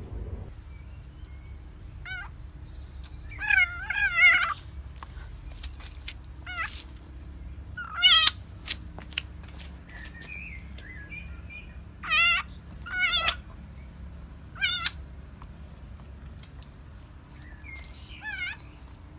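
Tabby cat meowing repeatedly, about nine wavering, warbling calls, some short and some drawn out.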